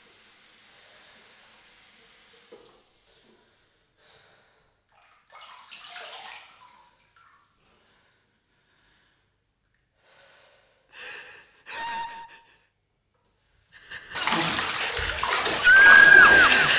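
A steady hiss of running water stops after about two and a half seconds. A few soft, quick breaths follow, then a loud, harsh burst of noise with swooping tones lasts about three seconds near the end and cuts off.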